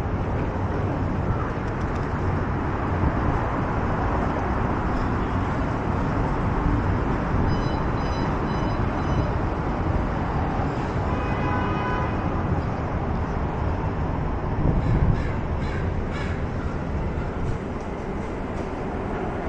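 Downtown street ambience: steady traffic hum from passing cars. About halfway through there is a brief high-pitched sound, then a short call with a clear pitch.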